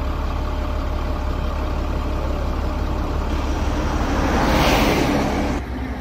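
Fire truck's diesel engine running steadily, a low rumble. About four seconds in, a louder rushing noise swells and then cuts off abruptly.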